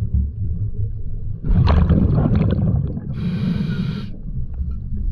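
Scuba diver breathing through a regulator, heard underwater: a hiss of inhaled air, a loud burst of exhaled bubbles about a second and a half in, then another inhale hiss around three seconds in, over a steady low underwater noise.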